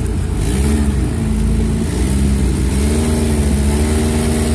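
Jeep Cherokee XJ's engine revving up and easing off under load as it crawls over creek-bed rocks, its pitch rising and falling over a steady low rumble.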